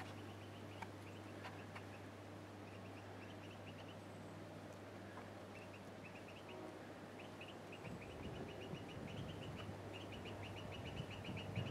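Faint outdoor ambience: a small animal's rapid, high clicking chirps, repeated in short runs. Low wind rumble on the microphone comes in about two-thirds of the way through and grows louder near the end.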